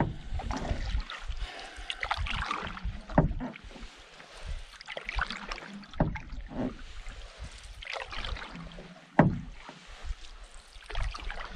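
Wooden canoe paddle dipping and pulling through calm lake water, a swishing stroke every couple of seconds, with two louder strokes about three seconds in and near nine seconds.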